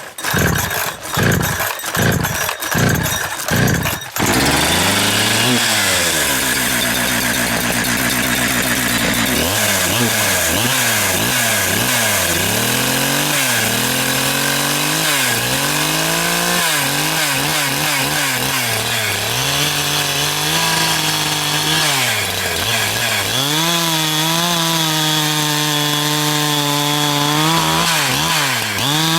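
Two-stroke chainsaw fired up in short sputtering surges for about four seconds, then catching and running continuously at high revs. About nine seconds in it starts cutting a log, its pitch dropping again and again under load and recovering between cuts.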